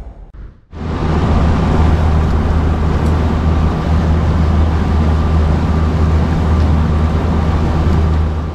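A boat's engine running steadily under way, a low even hum over a rush of wind and water, starting after a brief break about a second in.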